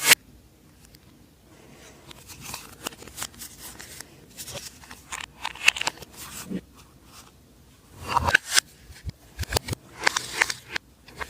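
Slime being mixed and worked by hand, giving a run of irregular sticky clicks and crackles.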